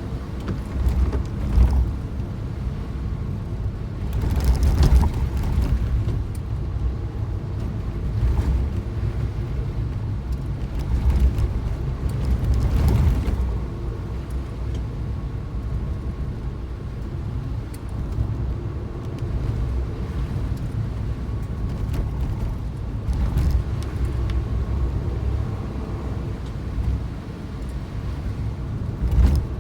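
Car driving: a steady low engine and road rumble, with a few brief louder swells of rushing noise.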